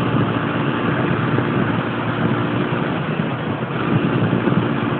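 Yamaha Factor 125 motorcycle's single-cylinder four-stroke engine running steadily under way, with wind and road noise on the bike-mounted microphone; the engine note shifts about three and a half seconds in.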